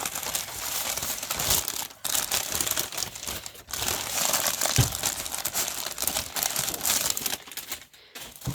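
Packing paper crinkling and rustling as it is unwrapped by hand, in stretches broken by short pauses, with one soft thump about halfway through.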